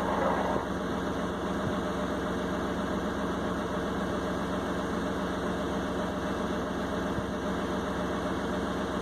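Heavy diesel engine running steadily: an even low drone with no change in pitch or load.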